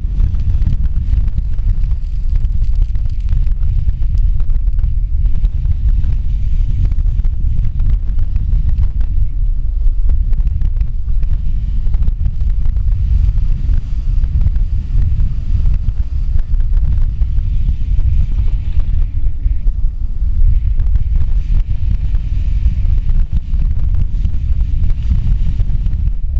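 Storm-force wind buffeting an action camera's microphone as a loud, continuous low rumble, with the hiss of breaking seas and spray along a sailboat's hull swelling in the second half.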